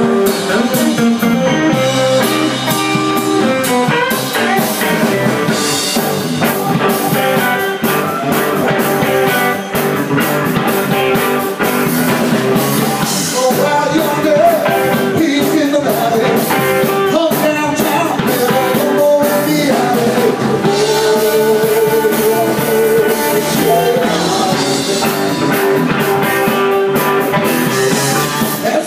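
Live rock band playing: electric guitar, keyboard, bass and drum kit, with a man singing lead vocals.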